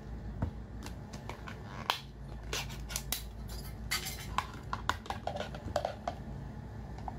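Glass jar clinking and knocking, and small pieces of cooked seafood clattering out of it onto a serving plate: a series of separate sharp clicks and clatters.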